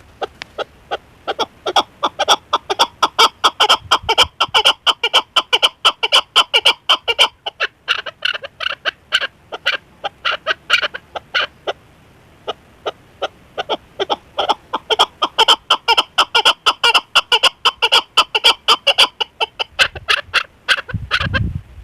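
Chukar partridge calling: a long, rapid run of sharp clucking notes, several a second, that breaks off briefly about halfway and starts again. A low rumble comes in near the end.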